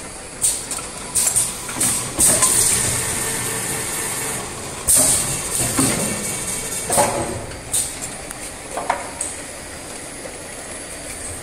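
Automatic four-nozzle filling machine running, with repeated short hisses of compressed air and scattered clicks and knocks from the machine and the bottles on its conveyor.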